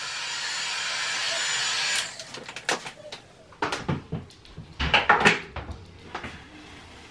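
Handheld heat gun blowing steadily on a freshly screen-printed t-shirt to cure the ink, switched off about two seconds in. Then a series of knocks and rustling, the loudest around five seconds in, as the shirt is handled.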